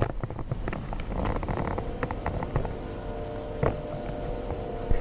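Low wind rumble on the microphone with scattered clicks from the camera being handled. From about two seconds in, a steady chord of several held tones sounds with them.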